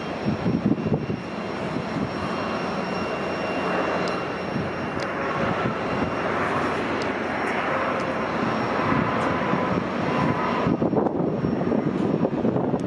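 Airbus A319 airliner's jet engines running: a steady rushing noise with faint high whine tones. The high part drops away about eleven seconds in, leaving the lower rush.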